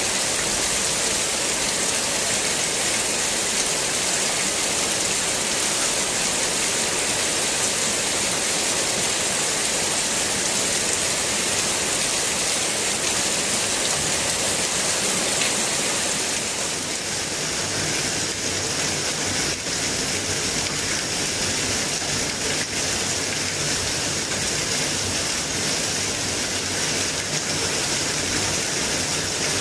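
Steady rain falling on garden trees and broad leaves, a dense, even hiss. About two-thirds of the way through the hiss changes slightly in tone and a faint low hum joins underneath.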